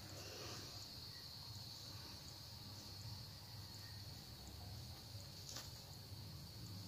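Faint steady high-pitched insect trill, like crickets, over a low hum, with one soft click near the end.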